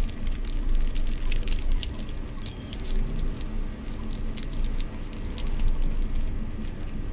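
Origami paper being creased and folded by hand: soft rustling and crinkling with many small paper clicks, over a steady low hum.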